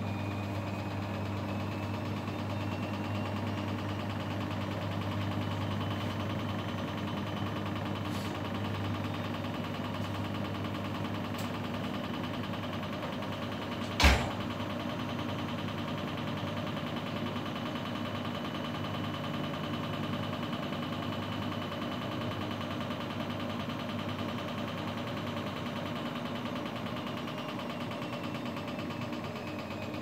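Grundig GWM4762 front-loading washing machine in its intermediate spin: the drum motor runs at a steady speed with a constant hum and a steady high whine. About halfway through there is a single sharp knock.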